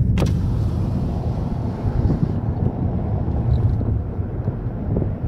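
Steady road and engine rumble inside a moving car's cabin, with some wind noise.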